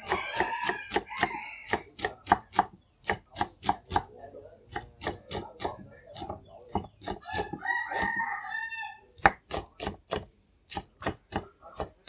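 A kitchen knife chopping green beans on a wooden chopping board: quick, fairly regular strokes, about three to four a second. Two drawn-out calls sound in the background, one near the start and one about eight seconds in.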